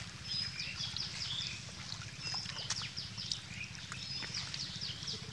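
Birds chirping and whistling over and over with short high calls, with light sloshing and splashing of shallow muddy water as hands feel through it, over a steady low rumble.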